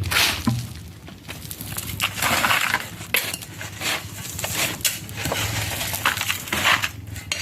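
Irregular crunching and scraping of stones and rubble being worked by hand, in short uneven bursts.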